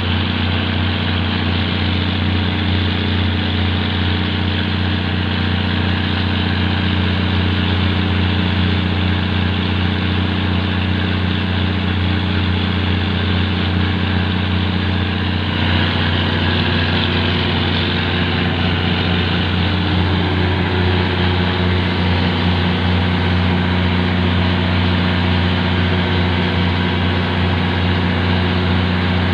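Fishing boat's diesel engine running steadily with a deep, even hum. About halfway through, a rushing hiss joins it and continues.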